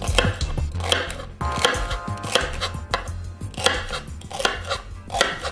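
Kitchen knife chopping celery on a cutting board: a steady run of quick cuts, each blade stroke knocking on the board.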